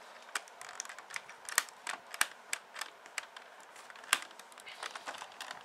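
Hard plastic panels of a Transformers Leader Class Sentinel Prime toy clicking and snapping under the fingers as they are pushed back into place: they don't stay in place well. A run of small irregular clicks, with two louder snaps about a second and a half in and about four seconds in.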